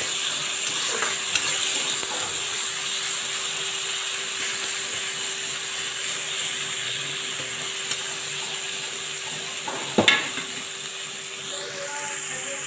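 Ground spice paste (ginger, garlic, black pepper, chilli, cumin) sizzling in hot oil in a kadai while being stirred, with one sharp knock about ten seconds in.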